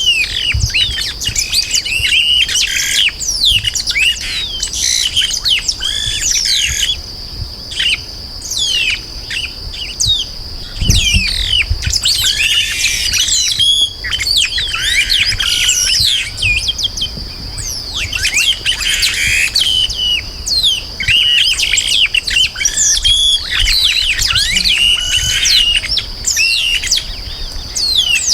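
Chupim-do-brejo (yellow-rumped marshbird) singing: dense runs of quick sliding chirps and whistles that come in bursts with short pauses, over a steady high-pitched tone.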